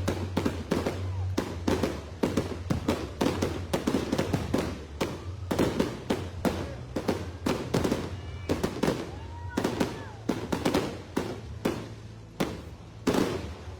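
Fireworks display in a rapid barrage: a dense run of bangs and crackles, several a second, that thins briefly in the last few seconds before a few louder bangs near the end.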